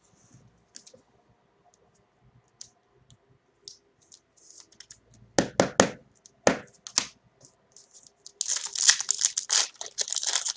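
Trading cards and their foil pack wrapper being handled: scattered soft clicks, a few sharp cracks about halfway through, then a stretch of dense crinkling and tearing near the end.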